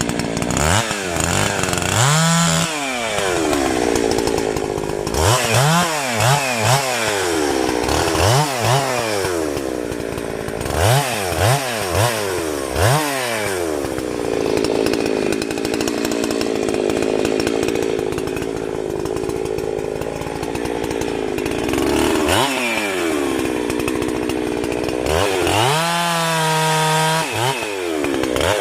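Chainsaw running, its engine pitch rising and falling in quick clusters of revs. Around the middle it holds a steady pitch for several seconds, and near the end it is held briefly at a high rev.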